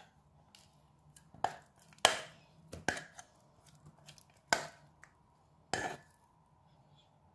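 A kitchen utensil knocking sharply against the rim of a saucepan and bowl about six times at uneven intervals, as thick pastry cream is scraped out and dropped into a bowl of almond cream.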